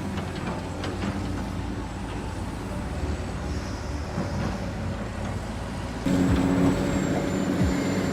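Radio-controlled construction models' motors running steadily. About six seconds in, the sound switches suddenly to a louder, steadier hum with a thin high whine.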